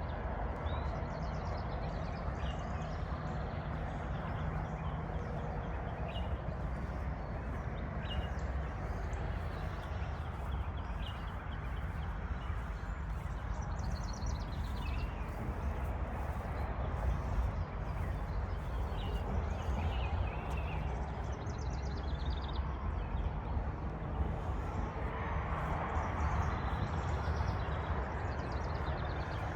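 Willys M38A1 jeep's four-cylinder engine idling steadily, with birds chirping now and then.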